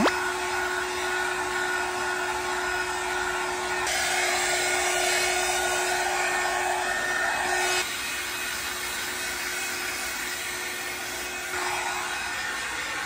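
Handheld pet hair dryer running: a steady high motor whine with rushing air. The air noise grows stronger about four seconds in and drops back about four seconds later.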